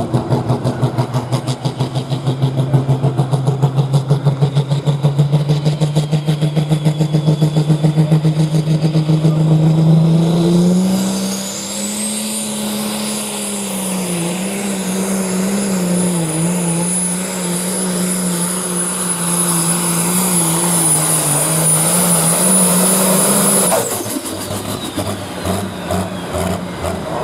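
Case IH MX240 pulling tractor's turbocharged engine running hard under full load during a pull. Its pitch climbs slowly, then jumps up and holds with a slight wobble, with a high steady turbo whistle over it. The sound drops off sharply near the end as the throttle comes off.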